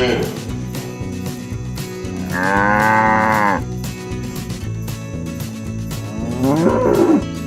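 Cows mooing twice: one long moo about two seconds in and a shorter one near the end, over background music with a steady beat.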